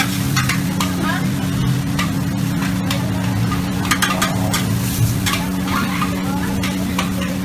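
Noodles stir-frying in a large steel wok: a metal ladle scrapes and clanks against the pan over a steady sizzle, with a steady low hum underneath.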